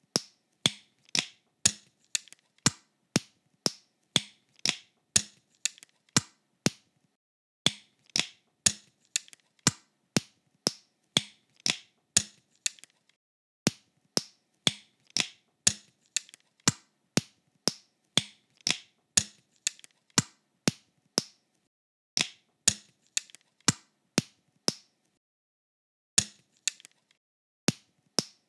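LEGO bricks clicking into place one after another, a sharp click about every half second, with a few pauses of about a second.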